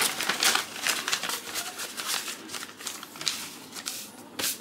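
Paper rustling and crinkling as a folded letter is slid into a manila envelope and the envelope is smoothed flat. Quick rustles come thickly for the first couple of seconds, then thin out.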